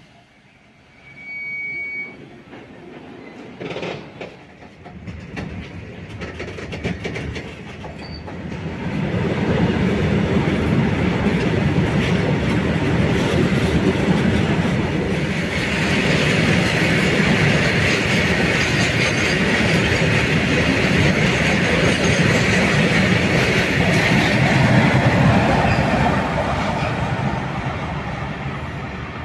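Goods train's open-top freight wagons rolling past on the rails. The wheel noise builds up about nine seconds in, a high screech joins from the middle, and it eases off near the end as the brake van passes.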